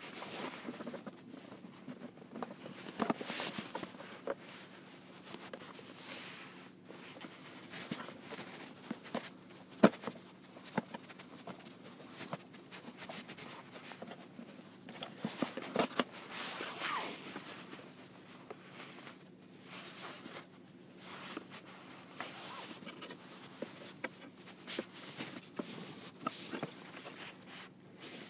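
Plastic packaging of a GoPro Hero 3 being handled and worked at by hand: irregular rustling and scraping with sharp clicks and knocks, the loudest about ten seconds in.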